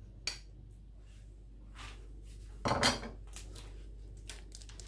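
Ceramic bowls and plates clinking as they are handled. A short knock comes just after the start, a louder clatter about halfway through, then a few light taps.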